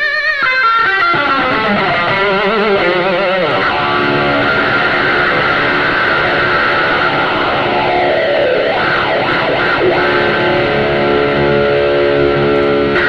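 Loud rock music on distorted electric guitar, with wavering, bending notes for the first few seconds, then held, ringing chords.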